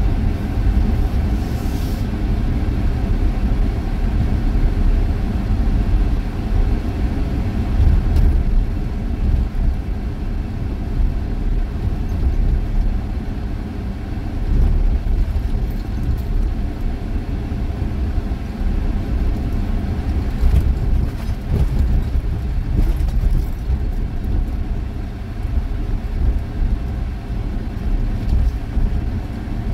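Vehicle driving along a beach, heard from inside the cab: a steady low rumble of engine and tyres, with a few faint clicks here and there.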